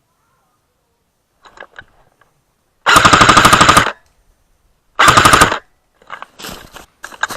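Airsoft gun firing two full-auto bursts at close range: a rapid, even rattle of about a second, then a shorter one of about half a second, after a few faint clicks. Fainter scattered noises follow near the end.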